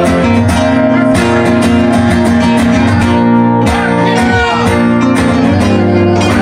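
Two acoustic guitars strumming chords together in a steady rhythm.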